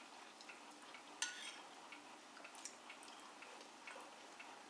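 Metal spoon clinking lightly against a porcelain bowl while eating, with one sharper, ringing clink about a second in among faint scattered ticks.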